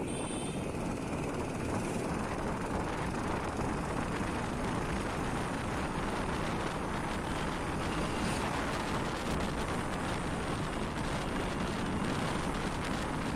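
Steady engine and road noise of a moving motorbike, with wind on the microphone.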